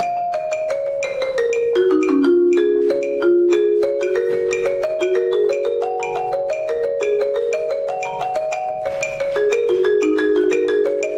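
Marimba played with yarn mallets: a quick, continuous stream of struck notes that runs downward over the first two seconds, then climbs and falls again through the middle of the instrument's range.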